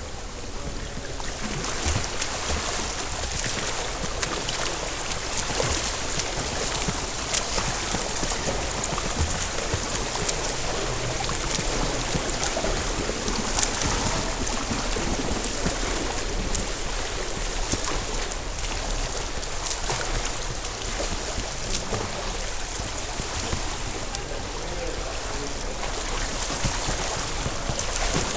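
Pool water churned by a swimmer's strokes and kicks, heard through a camera underwater: a steady rushing hiss full of small crackles and pops.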